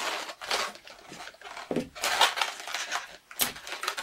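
Latex 260 modelling balloons rubbing and squeaking against each other and the hands as the leftover tail is wound around the twisted pinches, with irregular bursts and a short low squeak just before two seconds in.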